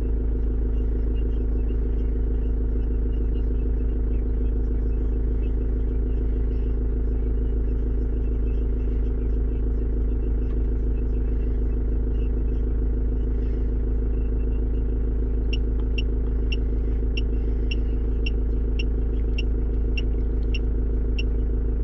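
Ford Transit Mk6 2.0 TDDi four-cylinder diesel engine idling steadily, a constant low rumble heard inside the cab. About two thirds of the way through, a quick regular series of short high ticks starts, about two or three a second.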